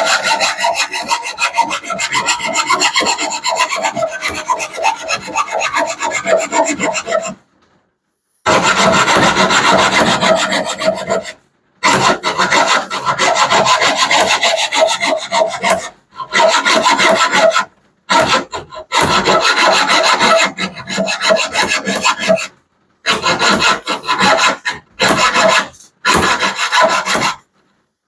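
Hacksaw cutting through a part with quick back-and-forth strokes, in several bouts broken by short pauses.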